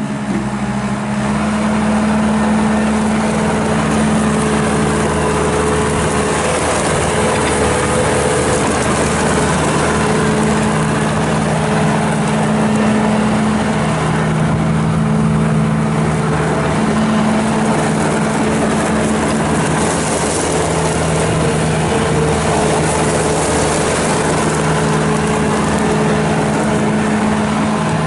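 Bobcat S650 skid steer's Kubota diesel engine running continuously, its engine note shifting up and down several times as the machine is worked.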